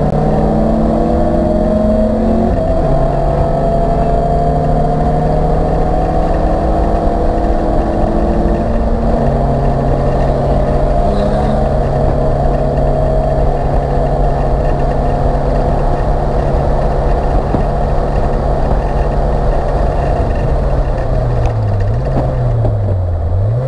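Acura Integra race car's four-cylinder engine heard from inside the stripped cockpit, running hard at high revs over constant wind and road noise. The engine pitch drops in a step about two and a half seconds in, holds steady for a long stretch, then dips and recovers twice near the end.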